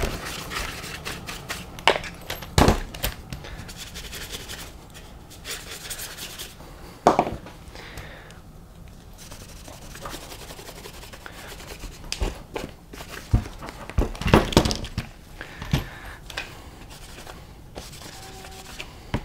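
A bristle paintbrush and then a cloth rag rubbing and scrubbing over the plastic chassis of a 1/8-scale off-road RC buggy, with a few sharp knocks in between.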